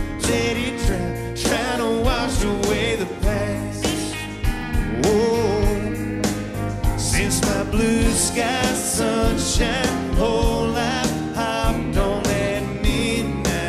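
Live country band playing with drums and electric guitar, and a male lead vocalist singing over it.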